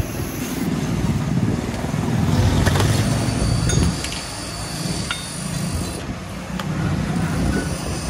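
Steady low rumble of street traffic, with a few faint metallic clinks of clutch-disc parts being handled on the stone floor.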